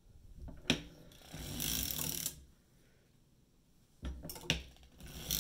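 Circular sock machine being hand-cranked through short-row heel passes: its needles and cams clatter in bursts, one about a second in and another from about four seconds, with sharp clicks between.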